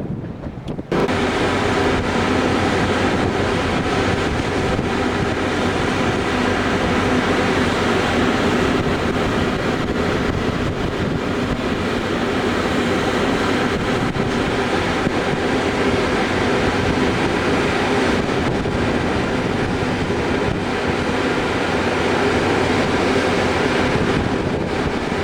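Gale-force wind rushing over the microphone together with the steady drone of a ferry's engines and machinery. It comes in abruptly about a second in and then holds steady.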